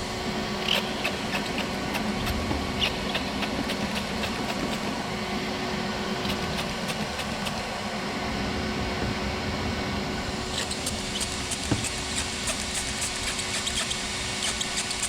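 Shop vac running as a blower, a steady whoosh with a low hum, with scattered faint crackling clicks over it that grow busier about ten seconds in.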